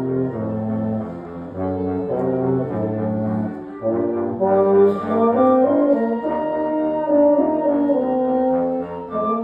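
A small wind ensemble of trombone, euphonium and clarinet playing a tune in held notes that change every half second or so, with a brief dip just before the middle and louder playing after it.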